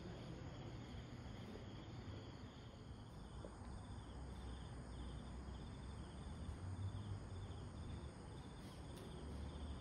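Night insects chirping in an even rhythm of about two chirps a second, over a faint low hum.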